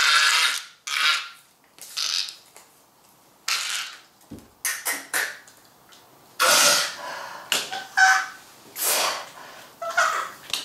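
A man's breathy, rasping cries and gasps in short bursts about a second or so apart: acted death throes as he pretends to die.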